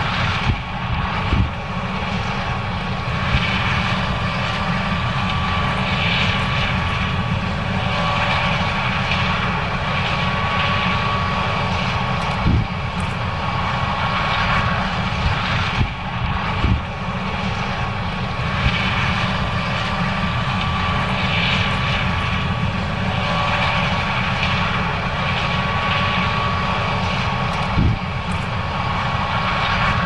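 John Deere S670 combine running steadily as it harvests corn: a continuous heavy engine and machinery rumble with a steady thin whine above it, and a few short low thumps.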